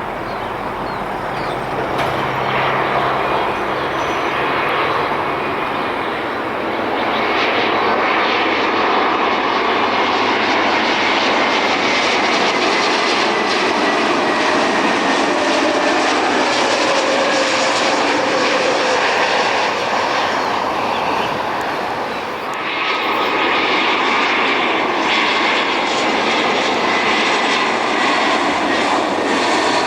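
Jet airliner's engines on landing approach: a loud, steady rush with whining tones that slowly fall in pitch as it passes, easing briefly about three-quarters of the way through.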